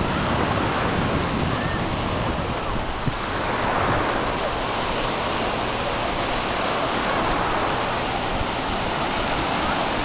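Sea surf breaking and washing in around the shallows, a steady rush of water.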